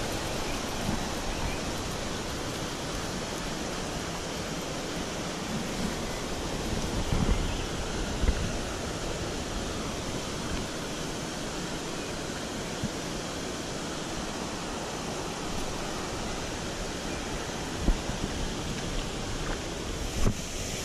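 Steady rush of a shallow mountain stream's flowing water. A few brief thumps stand out over it.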